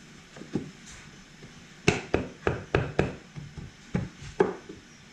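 Ride plate being set in place on the rear of a jet ski hull: about ten sharp knocks and clunks in quick, uneven succession, starting about two seconds in.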